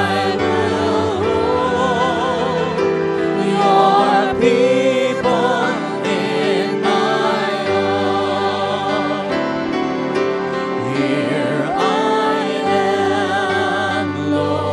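Gospel worship song: slow music with sustained chords under a sung melody with vibrato.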